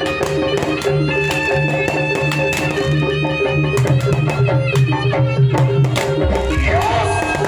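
Instrumental music with sustained melodic notes and a percussion beat, and a sliding melodic line coming in near the end.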